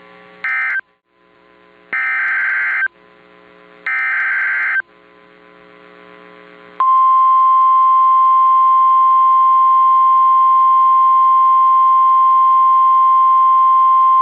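Emergency Alert System SAME header: three bursts of screechy digital data tones about a second apart, then, about seven seconds in, a loud, steady single-pitch attention tone begins and holds.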